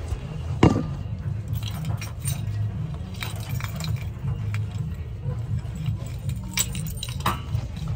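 Phone handling noise while crouching to tie a shoelace: rubbing and rustling against clothing, a sharp knock under a second in, and a few small metallic clinks.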